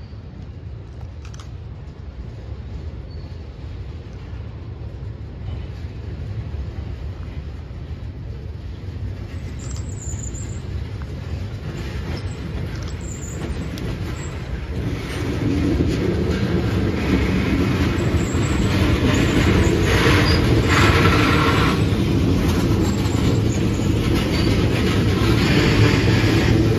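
Freight train of tank cars rolling slowly around a curve and past, with a low rumble that grows louder and steps up about halfway through as the cars draw alongside. Steel wheels clatter on the rails and squeal now and then on the curve.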